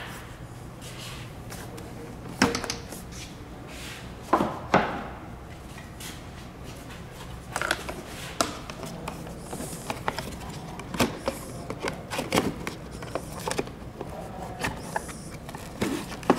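Hard plastic seat covers and cushion being pushed and snapped onto a suspension seat's frame: a few sharp knocks in the first five seconds, then many light plastic clicks and taps.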